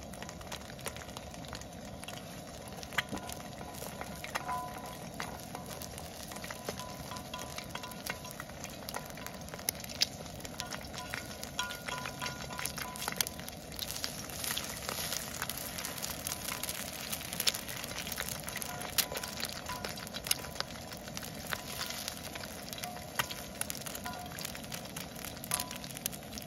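Eggs frying on a round grill pan over a portable gas stove: a steady sizzle with frequent small spits and pops.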